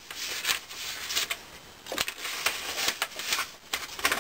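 Paper being handled: tickets rustling and crinkling in the hands, with many short sharp crackles.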